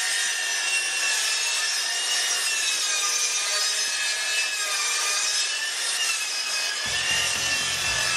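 Sliding compound miter saw running and cutting through a white shelf board, a steady cutting noise with a whine that wavers in pitch as the blade is fed through; a low rumble joins in near the end.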